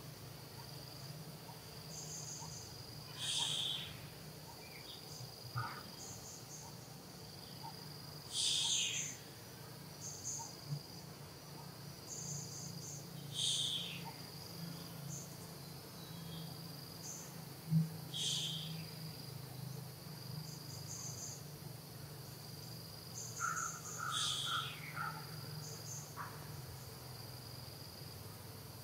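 Insects trilling steadily at a high pitch over a low steady hum, with scattered short high chirps. A louder high call that falls in pitch repeats about every five seconds.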